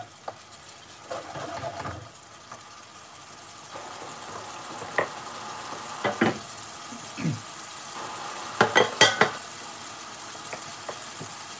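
Curry sauce sizzling and bubbling in an aluminium frying pan over a gas flame, reducing after the heat has been turned up, while a wooden spatula stirs it at first. A few sharp clinks and knocks, loudest in a quick cluster about nine seconds in.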